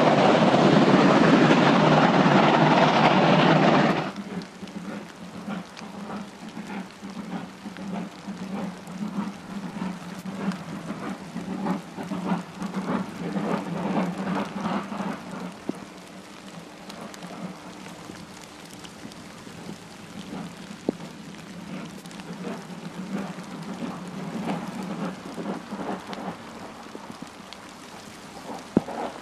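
Two-cylinder class 50 steam locomotive 50 3648 working hard close by, loud, for the first four seconds. After that it is heard faintly from a distance as an uneven run of exhaust beats that swells and fades while it approaches. The limping beat comes from damage to its slide valves.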